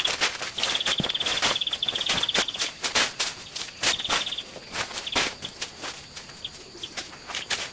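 An insect trilling in high, buzzing bursts, over a run of short knocks and scrapes from work or footsteps.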